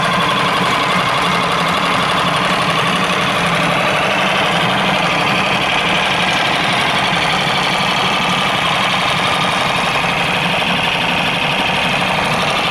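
Alfa F6 four-stroke 6 hp outboard motor idling steadily in a water test tank with its cowling off.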